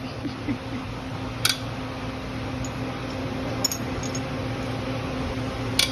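Three or four sharp metal clinks of small engine parts being handled, over a steady machine hum.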